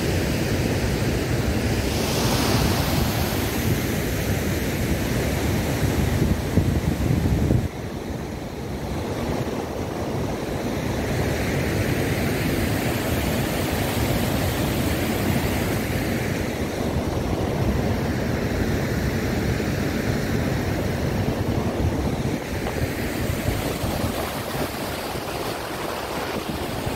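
Continuous rushing outdoor noise of wind and a fast, white-water mountain river. Heavy wind rumble on the microphone dominates until a sudden change about seven and a half seconds in, after which a steadier, softer rush continues.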